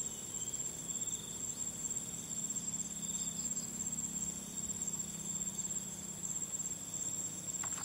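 Insects trilling steadily in one continuous high-pitched tone, with a faint low hum underneath.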